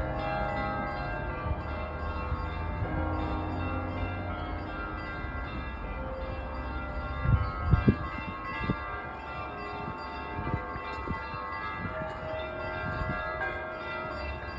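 Church bells ringing together, many bells of different pitches overlapping and sounding on in long ringing tones. A few loud low thumps come about halfway through.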